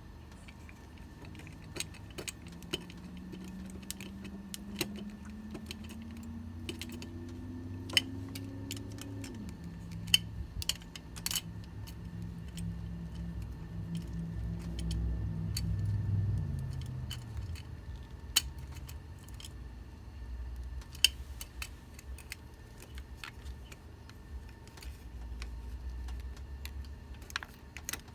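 Metal hand tools clinking and tapping on a car battery terminal and its hardware: a wrench worked by hand, with scattered sharp metallic clicks. Under the clinks a low hum rises slowly in pitch, then holds steady, swells and dies away about two-thirds of the way through.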